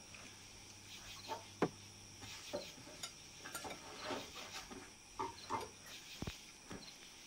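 Fork and cutlery clinking and scraping on a plate as someone eats: a scatter of light, irregular clinks, the sharpest about a second and a half in.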